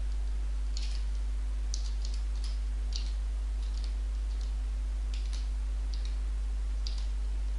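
Irregular clicks of a computer mouse and keyboard, about a dozen, as drop-down menus on a web form are opened and set. Under them runs a steady low hum.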